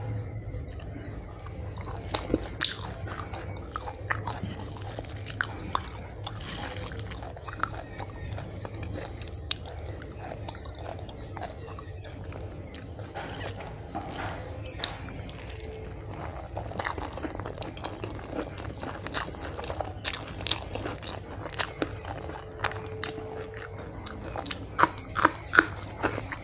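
A person eating a rice-and-curry meal by hand: chewing, with sharp crunchy bites scattered throughout and a quick run of loud crunches near the end.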